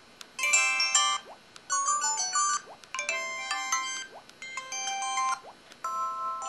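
LG-KV1100 flip phone's built-in sound effects: about five short polyphonic electronic jingles of about a second each, played one after another with brief pauses between.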